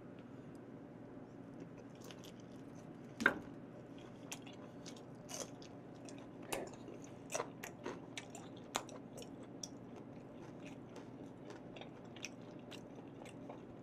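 Faint close-miked chewing, many soft wet clicks, as a person chews raw beef and then bites into fresh green Cheongyang chili peppers, with a crunch. One click about three seconds in is louder than the rest.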